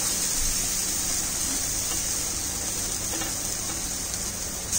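Steady hissing sizzle from a stovetop gas tandoor, with marinated chicken pieces just laid on its hot wire grill over the gas flame.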